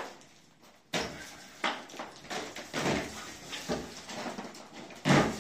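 Old plaster and hanging metal strips being pried and pulled down with a hand tool during demolition. Irregular knocks, scrapes and rattles of metal and crumbling debris, the loudest about five seconds in.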